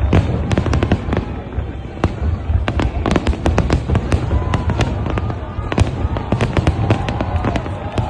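Fireworks display: a dense run of rapid crackling bangs over a continuous low rumble.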